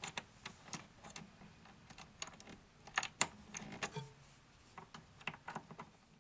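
Irregular light clicks and taps of a screwdriver working the screw that holds the cam on the back of a cam lock cylinder, the loudest about three seconds in.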